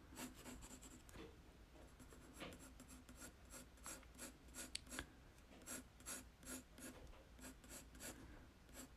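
Faint scratching of an HB graphite pencil on paper: an irregular series of short strokes, coming faster in the second half.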